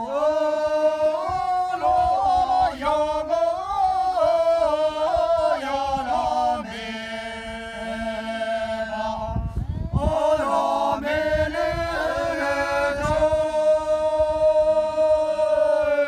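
A group of people singing together in unison: a slow, chant-like song with long held notes, broken by a short pause for breath about nine and a half seconds in.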